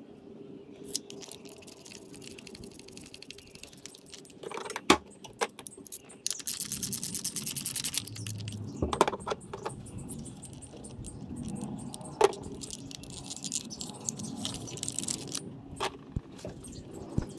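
A quarter-inch ratchet with a 10 mm socket clicking in a fast, even run for about two seconds as it turns a nut on the ignition-coil wire harness of a Toyota 1.8-litre engine. Around it are light clinks and scrapes of metal tools, with two sharp metal knocks, one before the ratcheting and one after it.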